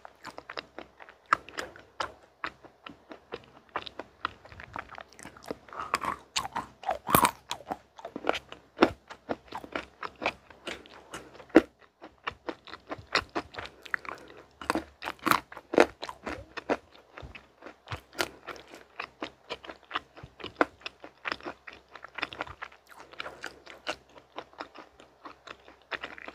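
Close-up mouth sounds of chewing small, hard mint-green candy eggs: crisp, irregular crunches several times a second, with wetter chewing between them.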